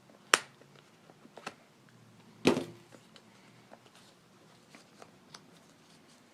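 Two sharp clicks about two seconds apart, the second the louder with a short tail, and a few faint ticks between them: staple and tool work on a motorcycle seat cover stretched over its pan.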